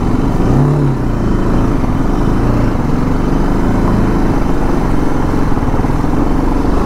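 BMW G 310 GS single-cylinder engine running steadily as the bike is ridden slowly over rough, wet dirt road, with one brief rise and fall in engine pitch about half a second in.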